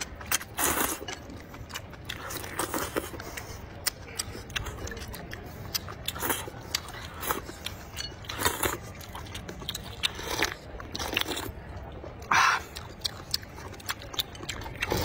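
Close-up eating sounds of spicy rice noodles: repeated short slurps as the noodles are sucked in, the loudest about twelve seconds in, between wet chewing and many small sharp clicks.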